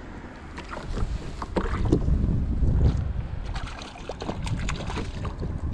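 Water sloshing around a kayak with scattered knocks and clicks from handling on board, and wind rumbling on the microphone. It is loudest about two to three seconds in.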